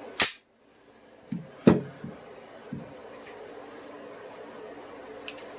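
Handling noises of a pistol and holster gear: one sharp click, then a couple of dull knocks and a few light clicks.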